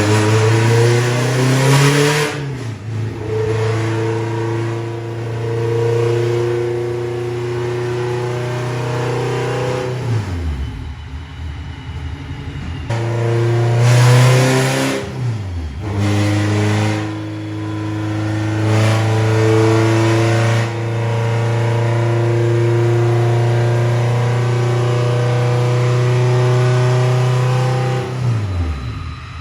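Car engine under hard acceleration, holding a strong steady note. Three times its pitch drops sharply and climbs again, about ten seconds in, around fifteen seconds and near the end, like gear changes or the car passing.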